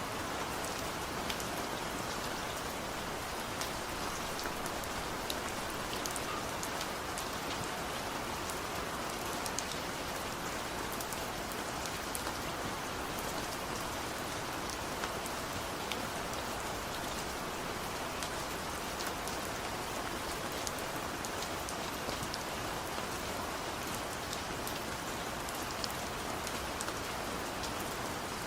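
Steady rain falling: a continuous hiss thick with the sharp ticks of individual drops striking.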